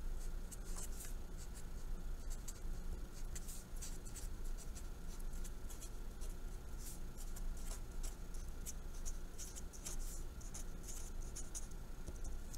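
Marker pen writing on paper: a run of short, quick scratching strokes as a line of handwriting is put down, over a faint steady electrical hum.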